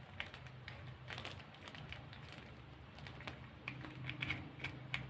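Scattered light clicks and taps of small parts being handled and fitted together by hand, over a faint low steady hum.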